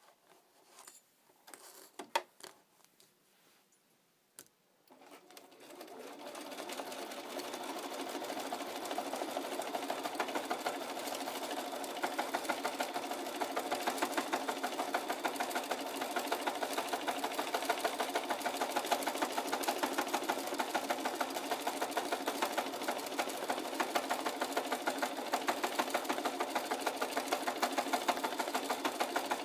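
A Bernina sewing machine free-motion stitching. After a few light clicks from handling the fabric, the machine starts about five seconds in, picks up speed, and then runs steadily with a rapid, even needle rhythm.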